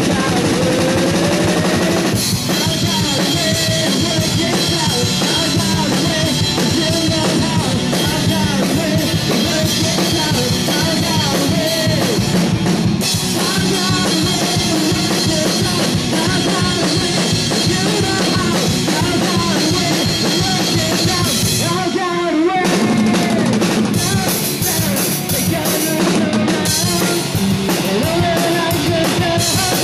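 A rock band plays with a full drum kit and electric guitars, the drums driving a steady beat under the guitars. The low end drops out briefly about two-thirds of the way through, then the full band comes back in.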